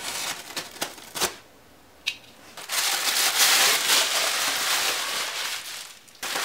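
A box cutter slitting the tape on a cardboard shipping box, with several sharp clicks and scrapes. After a short pause, a long loud crinkling rustle of tissue paper being pulled out of the box, which stops suddenly near the end.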